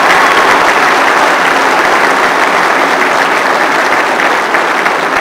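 Large audience applauding: dense, steady clapping that eases off slightly near the end.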